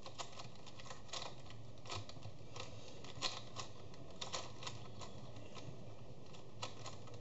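Plastic clicks of a handmade cutter cube, a 3x3 puzzle cube built from a YJ Guanlong, as its layers are turned by hand: short sharp clicks at an uneven pace, about one or two a second.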